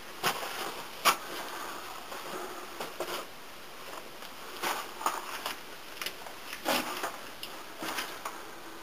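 Footsteps and scuffs on the floor of a mine tunnel, short irregular strokes a second or so apart.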